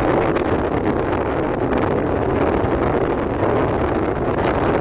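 Steady rushing wind noise on the microphone with a low rumble underneath, unbroken throughout.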